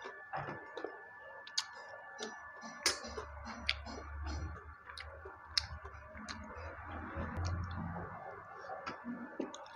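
Eating soaked rice by hand from a stainless steel plate: scattered small clicks and smacks of fingers scraping the plate and of the mouth chewing.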